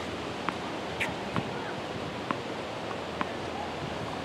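Steady outdoor wind-like noise with a handful of short, sharp pops at irregular spacing from tennis balls striking the hard court and rackets.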